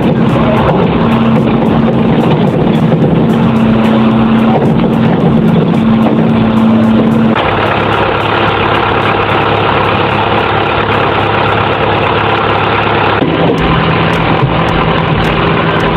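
Heavy diesel engine of a truck-mounted crane running steadily, its pitch stepping to a new level about seven seconds in and again near the end.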